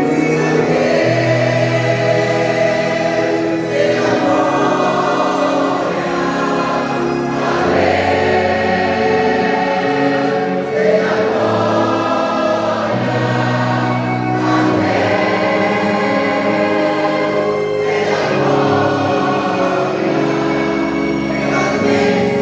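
A vocal group singing a Portuguese gospel hymn in harmony, with long held chords that change every few seconds.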